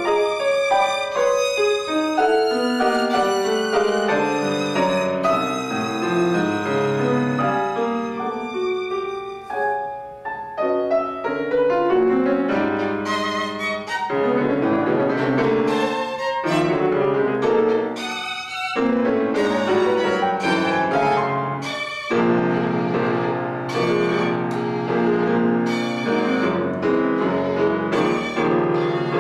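Violin and piano playing a classical duo live: a busy, fast-moving violin line over piano accompaniment, with several sharp accented chords in the second half.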